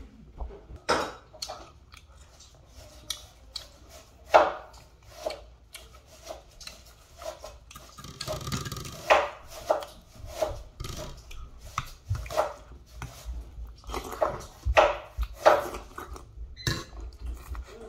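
Close-up eating sounds of dried deer meat and rice: chewing, with irregular short clicks and taps from a spoon and the food being handled on the plate.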